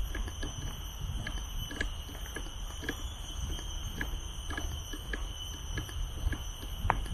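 Footsteps of someone walking a park trail, soft irregular steps, over a steady high-pitched hum and a low rumble.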